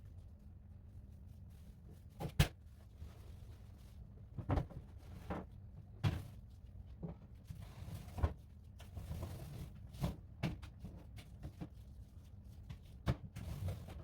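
Scattered knocks and clunks of cupboard doors and pantry items being handled, about ten in all, the sharpest a single knock about two and a half seconds in, with a short rustle around nine seconds in.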